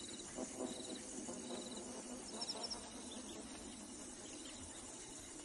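Faint natural bush ambience: an insect trilling high and thin in short repeated bursts over a soft hiss, with a few brief high chirps about halfway through.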